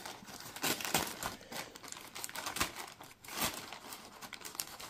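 Crinkling, rustling packaging handled in irregular bursts as a parcel of fishing tackle is opened by hand.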